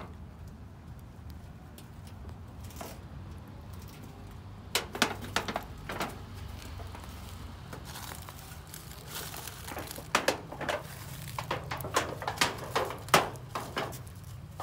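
Puppies scrambling through dry leaves, twigs and grass: spells of crackling rustle, one about five seconds in and a longer one from about eight seconds on, over a steady low hum.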